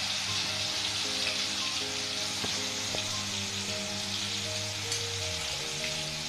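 Hot cooking oil sizzling steadily in a steel wok over a gas flame, with soft background music.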